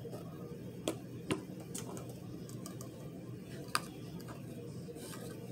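Plastic iced-tea bottle and cup being handled as the bottle is opened: a few sharp clicks and taps, the clearest about a second in and near four seconds, over a low room hum.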